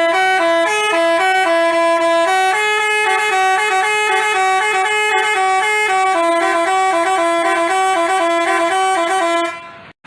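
Bus 'telolet' Basuri multi-tone horn playing a quick tune of stepping notes. It fades and cuts off near the end.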